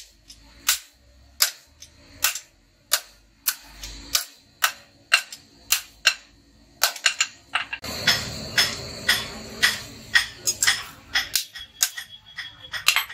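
Hand hammer striking a red-hot billhook blade on an anvil block in sharp, regular blows, about one to two a second, while the steel is forged to shape. The blows come faster and closer together from about seven seconds in.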